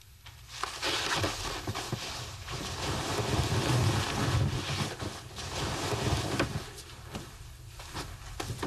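Bedcovers rustling as a person throws off a duvet and climbs out of bed.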